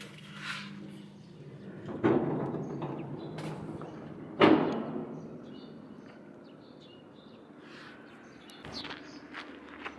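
Metal door of a crane cab banging twice, about two and a half seconds apart, each bang ringing briefly, the second louder. Footsteps on a walkway follow near the end.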